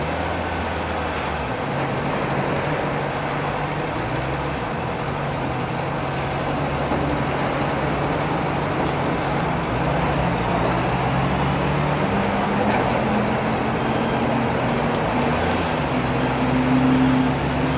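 Honda CB650F's inline-four engine running at low revs while creeping along in slow traffic, over steady road and traffic noise. The engine note climbs about twelve seconds in and is loudest shortly before the end.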